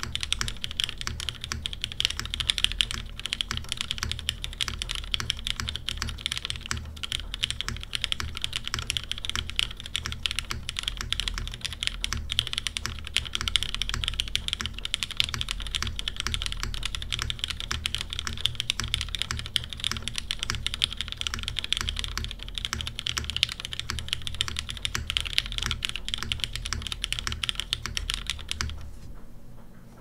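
Fast, continuous typing on a Freyr custom mechanical keyboard, top-mounted with an aluminium half plate, fitted with lubed Hyperglide Black linear switches and GMK keycaps. The typing stops shortly before the end.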